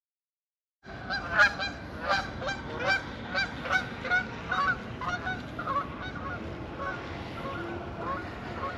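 Geese honking, a rapid run of calls about two a second that thins out after about five seconds, over a steady background hiss.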